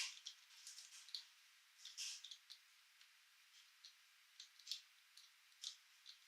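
Faint, irregular light clicks and taps of small plastic toy parts being handled, with a louder one as it opens and another about two seconds in.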